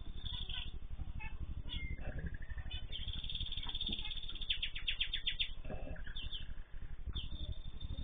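Cage birds calling in an aviary: short scattered chirps, then a drawn-out call about three seconds in that breaks into a quick run of about seven notes, over a steady low hum.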